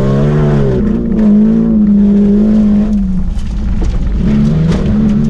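Opel Astra II race car's engine heard from inside the cabin, running hard, its pitch dropping about a second in and again around three seconds, then climbing back near the end. A few sharp knocks come through in the second half.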